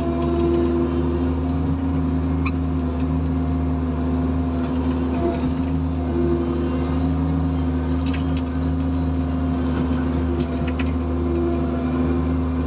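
Bobcat E45 mini excavator's diesel engine running steadily, heard from inside the cab while the boom and bucket are worked. One of its tones briefly swells several times, and there are a few light clicks.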